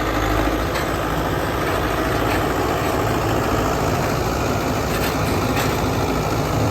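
A vehicle engine running steadily at low revs, with a few faint clicks over it.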